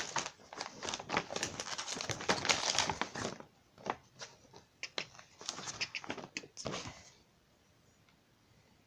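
Packaging crinkling and rustling with many small crackles and clicks as parts are taken out of a TV wall mount box, stopping about seven seconds in.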